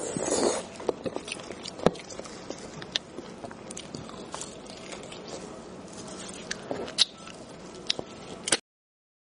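Close-miked eating sounds: sucking and slurping marrow out of a cooked beef bone, with wet lip smacks and sharp mouth clicks, a longer slurp at the start. The sound cuts off suddenly near the end.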